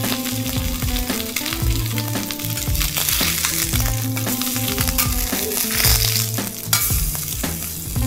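Pieces of presa ibérica pork sizzling steadily as they sear on a hot flat-top griddle. Background music plays underneath.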